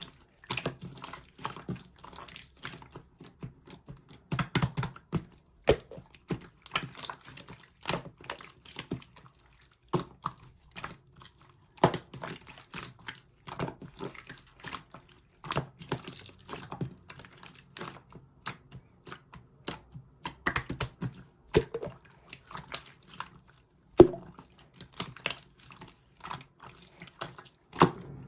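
Black shaving-foam slime being squished and poked by hand, giving a run of small, irregular wet clicks and pops, with a sharper pop now and then.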